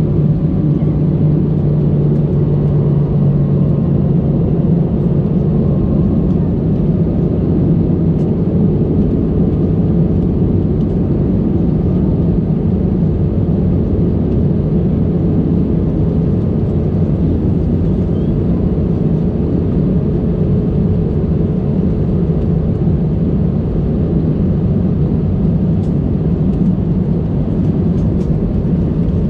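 Steady cabin noise inside an Airbus A320 on approach: engine drone and the rush of air past the fuselage. A low hum in it eases off after about six seconds.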